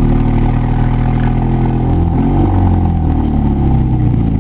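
Vehicle engine running at low speed, heard from inside the cabin, its pitch dipping and rising about halfway through as the vehicle maneuvers toward a gas pump.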